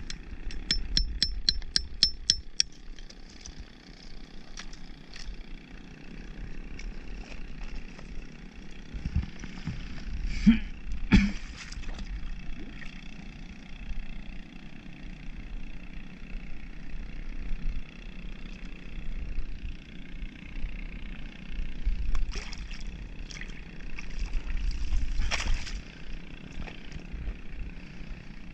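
A hammer tapping a metal spike against a clump of oysters to chip them loose: a quick, even run of about eight ringing metal taps at roughly four a second near the start. Then a couple of heavier knocks and scattered light knocks as the shell clump is handled, over a steady low rumble.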